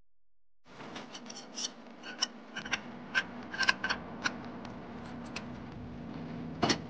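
Light metallic clicks and clinks of a pair of collet wrenches being handled and fitted onto a CNC router spindle's collet nut to loosen it for a bit change, with a sharper clack near the end. A steady low hum runs underneath after a short silence at the start.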